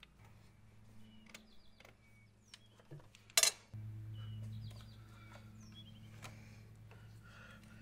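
Faint clicks and taps of hand tools and fittings being handled in a car's engine bay, with one sharp click about three and a half seconds in. Small birds chirp in the background, and a low steady hum sets in right after the sharp click.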